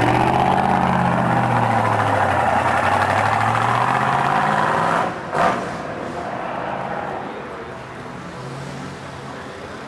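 Chevrolet Corvette Sting Ray's 396 big-block V8 pulling away under throttle, its pitch dipping and rising. About five seconds in there is a short burst, and the engine sound then drops much fainter.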